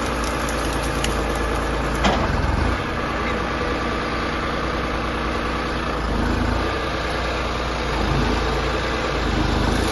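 Heavy machine's diesel engine idling steadily, with a short sharp clack about two seconds in.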